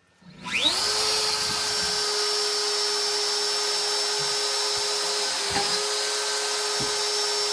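DeWalt trim router on an X-Carve CNC spinning up with a quickly rising whine, then running steadily at full speed with a high whine and hiss.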